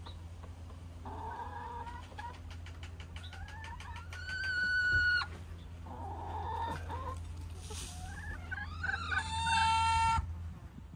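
Hens calling: several short clucks and a quick run of clucking, then two loud drawn-out calls that rise in pitch and hold, the second, near the end, the loudest.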